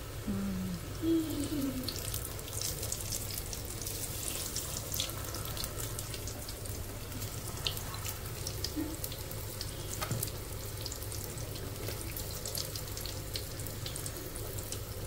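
Batter-coated bread pakoras deep-frying in hot oil in a kadhai: a steady sizzle with lots of small crackles, over a steady low hum.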